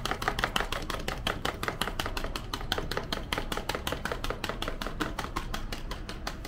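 Chopsticks beating a raw egg in a bowl: a fast, even clatter of about seven strikes a second that keeps going without a break.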